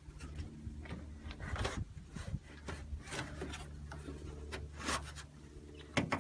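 Hood underliner being handled and pressed back up against the underside of the hood: irregular rubbing and scraping with scattered clicks, and a sharper click near the end.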